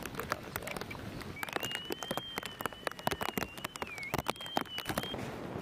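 Handheld metal detector's audio tone: a steady high whine that begins about a second and a half in and lasts nearly four seconds, wavering slightly and dipping briefly near the end, over irregular crunching clicks.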